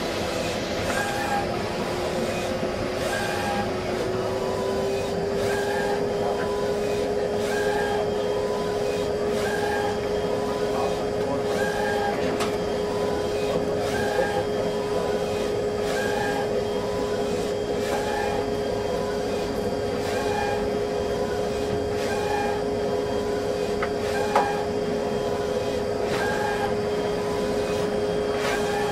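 Large-format roll plotter running as it prints a drawing: a steady mechanical whirr with a humming tone that rises slightly about four seconds in and then holds, soft repeating sounds about every second and a half, and a single sharp click near the end.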